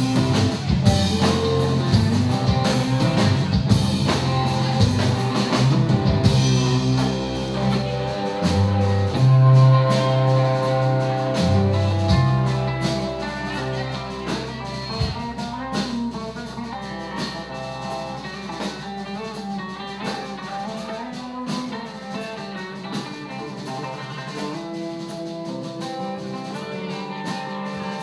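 Live rock band playing electric guitar, bass guitar and drum kit. For the first half the drums hit steadily over heavy bass. About halfway through, the drums mostly drop out and the music gets quieter, with guitar notes ringing on.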